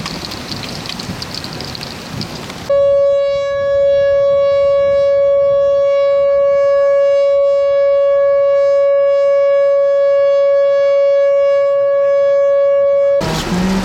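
Steady noise of rain and a moving vehicle. About three seconds in, a loud electronic tone at one fixed pitch starts abruptly, holds unchanged for about ten seconds and cuts off sharply.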